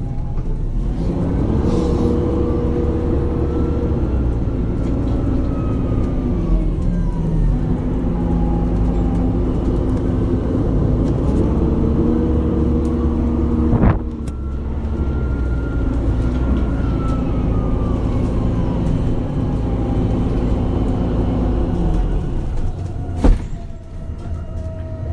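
MAN Lion's City Hybrid city bus on the move: a steady engine drone underneath an electric-drive whine that rises and then falls, twice over, as the bus speeds up and slows down. Two sharp knocks, one about halfway through and one near the end.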